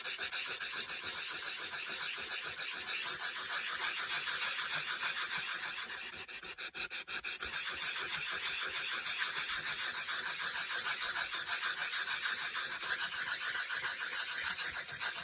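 A sanding block rubbed quickly back and forth over embossed cardstock, a steady rhythmic rasping hiss as it wears the coloured top layer off to show the white core underneath. The rubbing eases briefly about halfway through, then carries on.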